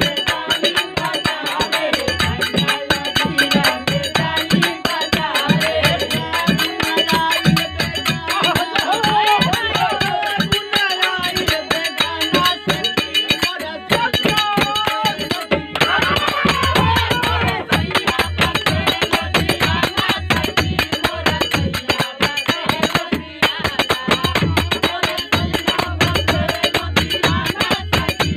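Live Bhojpuri Phagua (Holi folk song) music: harmonium, dholak drum and small hand cymbals playing a fast, steady beat, with men's voices singing along.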